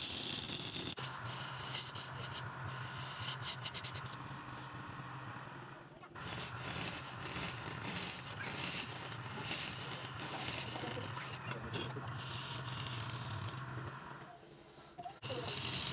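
Wood lathe running with a steady hum while a turning tool scrapes across the spinning wood. The scraping drops away briefly about six seconds in and again near the end.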